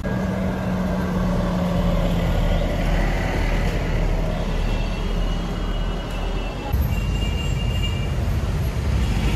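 Red articulated TransMilenio bus running close by with a low, steady engine hum on the wet road, blending into general city traffic; the traffic gets louder about two-thirds of the way through.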